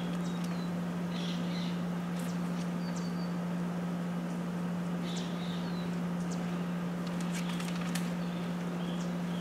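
A steady low machine hum throughout, with scattered short high bird chirps and a few sharp clicks over it.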